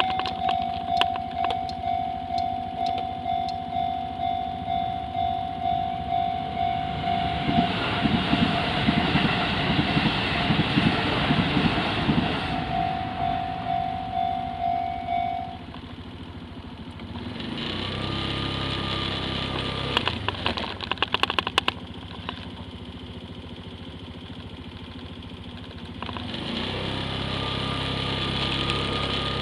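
A railway level-crossing warning bell rings in steady even pulses while an electric train runs past over the crossing about eight to twelve seconds in. The bell stops about halfway through, and then two road vehicles pass over the crossing, each with a low engine hum.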